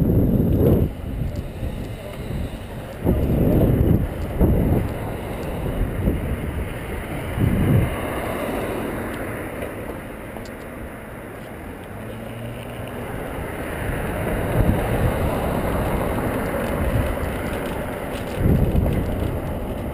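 Wind buffeting the microphone of a cyclist riding along a city street, rumbling in several strong gusts over a steady hiss of road and traffic noise.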